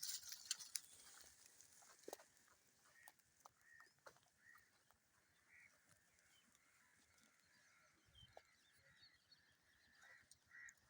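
Faint short animal calls, repeated at intervals and bunched together near the end, over near silence, with a brief hiss and a few clicks in the first second.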